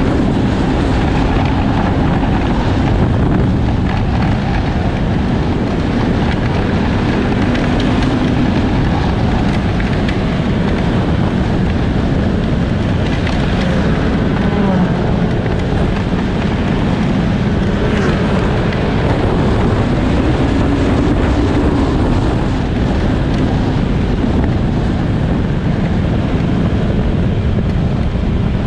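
Snowmobile engine running steadily while riding, its note shifting slightly, buried in heavy wind noise on the microphone.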